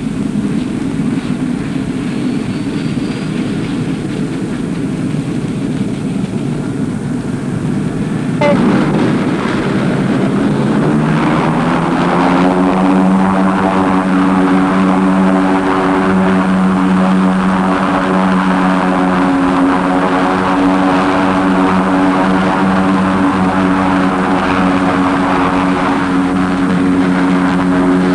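Air cushion vehicle's engine and propeller: a low rumble that grows louder about eight seconds in, then rises in pitch and settles into a steady drone.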